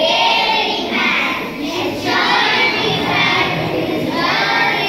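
A group of children singing together in unison.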